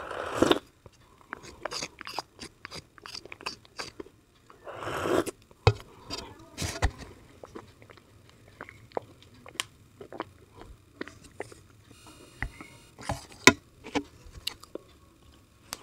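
Close-miked mouth sounds of eating a thick white paste: two wet slurps from the bowl, about half a second in and around five seconds, then a scatter of sticky chewing and lip-smacking clicks, the sharpest near the end.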